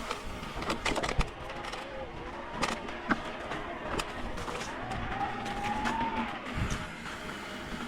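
Mountain bike rolling fast down a dirt singletrack: steady tire and chassis rumble with sharp clicks and rattles over bumps, and a faint whine that rises and falls about five seconds in.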